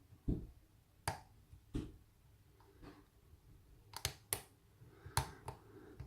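Lock pick and tension wrench working in an American Lock Company 1205 padlock: a series of small, sharp, irregular clicks and taps, with a duller knock just after the start.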